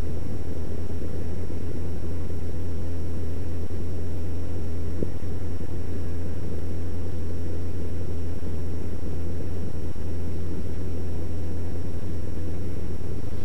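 A steady, unchanging low rumble with a noisy haze above it and a faint, thin high-pitched whine.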